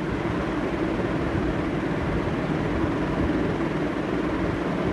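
Steady rushing background noise with a constant low hum.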